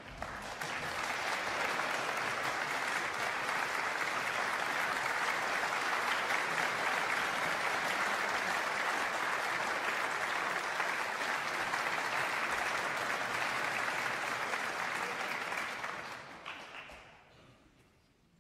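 Concert audience applauding steadily, then dying away over about two seconds near the end as the pianist sits at the piano.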